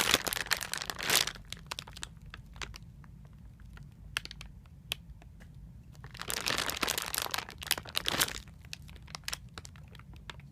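Plastic squishy packaging crinkling as it is handled, in two spells: one in the first second or so and another from about six to eight seconds in, with small rustles and clicks between.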